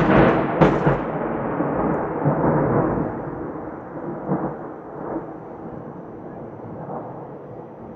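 A thunderclap: sharp crackling in the first second, then a rolling rumble of thunder that slowly fades away.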